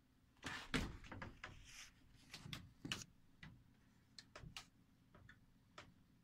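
A run of irregular knocks, clicks and light rattles, about a dozen, the loudest a little under a second in, then sparser toward the end.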